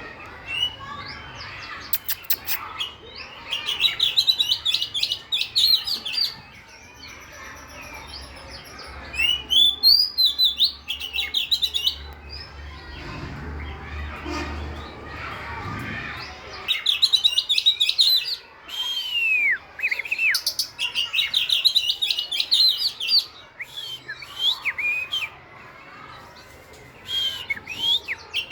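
Oriental magpie-robin singing: phrases of rapid, trilled notes mixed with whistled glides, broken by pauses of a few seconds.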